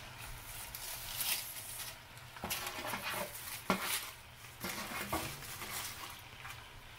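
Roasted broccoli being scraped off a foil-lined baking sheet into a cast-iron skillet with a spatula: aluminium foil crinkling, with a handful of short scrapes and light knocks of the utensil against the foil and pan.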